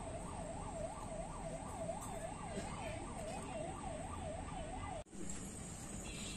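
A siren-like warbling tone, its pitch sweeping up and down about three times a second, stopping abruptly about five seconds in, followed by a quieter background.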